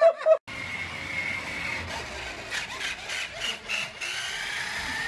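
The electric motor and gears of a remote-control toy dump truck, whining as it rolls across a hardwood floor; the whine's pitch drifts up and down with its speed, with scattered clicks. A brief burst of a baby's giggling is cut off just before it.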